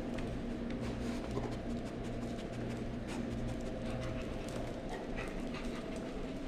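A retriever's claws clicking and tapping on a hard polished floor as it walks and trots, over a steady electrical hum.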